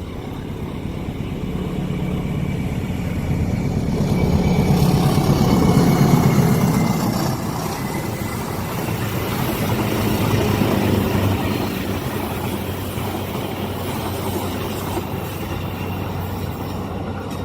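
Diesel locomotive engine running as a train draws near, growing louder to a peak about six seconds in, then easing to a steady drone.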